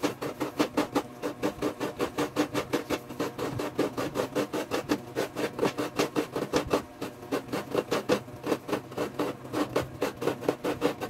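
Half a coconut scraped back and forth against a hand coconut grater, a steady rasping of about five strokes a second as the flesh is grated out of the shell.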